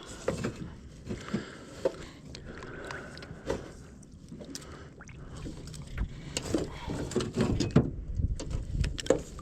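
Irregular knocks, bumps and handling noise against a small fishing boat while a hooked king salmon is unhooked for release beside it. The sounds get busier and louder in the last few seconds.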